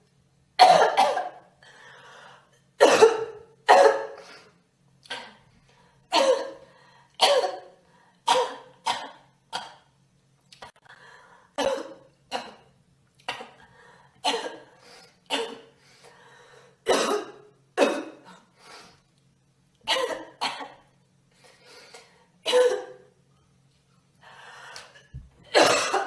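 A girl coughing over and over: short, sharp coughs, some single and some in quick pairs, about once a second, with fainter breaths between them.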